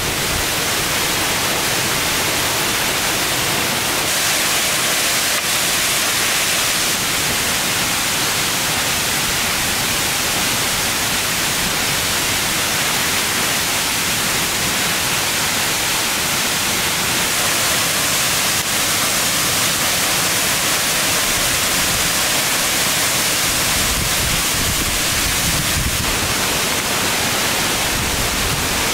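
Steady, loud hiss of even noise with no pitch or rhythm; a low rumble joins in near the end.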